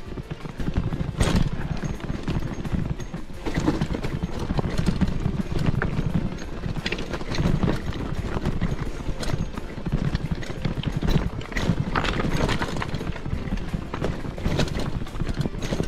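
Mountain bike rattling over a stony trail: irregular knocks and clatter of the tyres and frame on loose rocks, over a steady low rumble.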